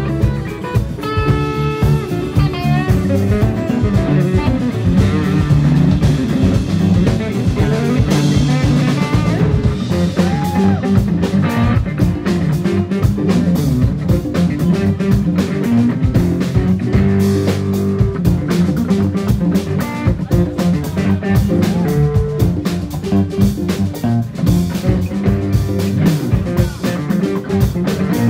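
Live rock band playing: a guitar lead over bass and a steady drum beat.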